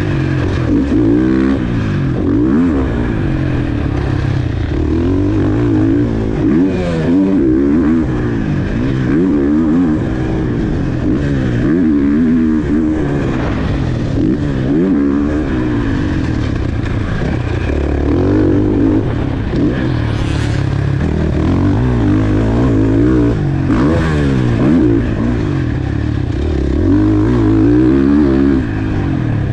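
Onboard sound of a KTM four-stroke motocross bike at full race pace, its engine revving up and dropping back over and over as the throttle is opened and closed through the ruts, jumps and corners.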